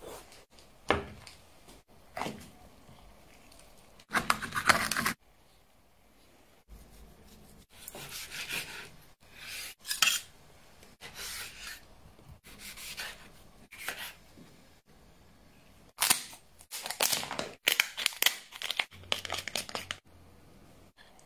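A string of short cutting, scraping and clinking sounds, with quiet gaps between them: a knife and kitchen scissors working on abalone in its shell and on a cut-open king crab leg, metal on shell. The loudest burst comes about four seconds in, and a quick run of them comes near the end.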